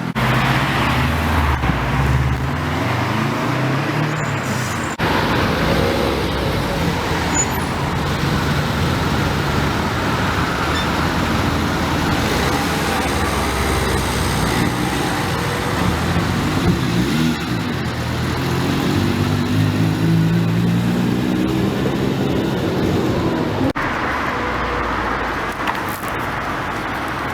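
Cars driving past on a road, their engine and exhaust notes rising and falling as they pull away, over steady traffic noise.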